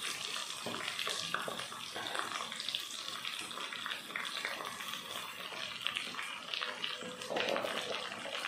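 Vegetables and onions sizzling in hot oil in a cooking pot: a steady hiss with many small crackles.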